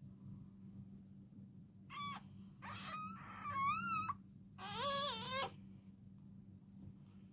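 Newborn puppy crying: three high, wavering squeals, a short one about two seconds in, then a longer one and a final one, before it falls quiet.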